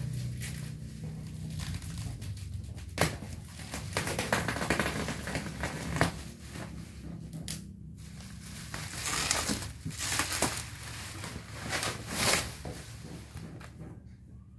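Plastic bubble wrap crinkling and tearing as it is pulled off a cardboard TV box, in irregular rustles with a few sharp louder cracks.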